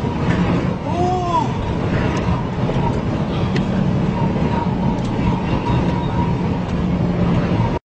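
Steady engine drone and road noise of a vehicle travelling at highway speed, heard from inside the cab, with a brief rising-and-falling tone about a second in. The sound cuts off abruptly at the end.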